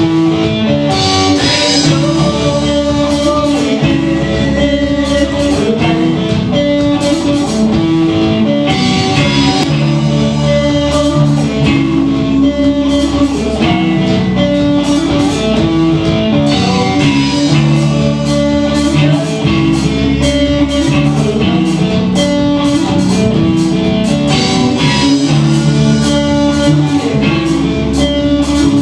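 Rock band playing: electric guitars over a drum kit with steady cymbal strokes.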